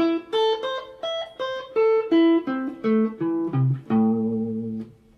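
Guitar playing an A minor arpeggio note by note across the neck, picked notes about three a second moving up and back down, the last note held and fading out near the end.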